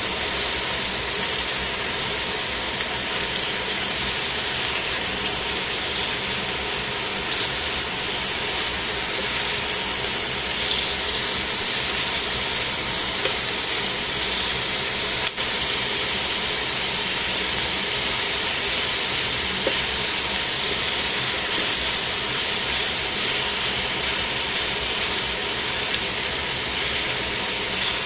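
Chicken pieces frying in a stainless-steel pan, sizzling steadily.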